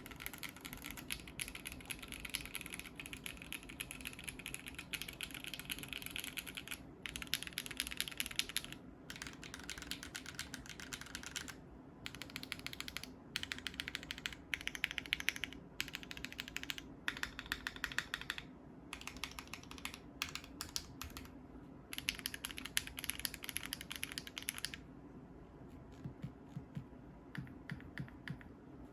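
Typing on a Keychron Q2 mechanical keyboard with lubed SP-Star Meteor White linear switches on a polycarbonate plate, its plate and case foam removed. Fast runs of keystrokes are broken by short pauses, and the typing thins to a few single key presses near the end.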